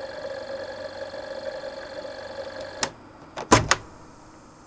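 Malfunctioning Magnavox laserdisc player running with a steady hum and whine, which cuts off with a click about three seconds in as the player is switched off, followed by a quick cluster of loud clicks.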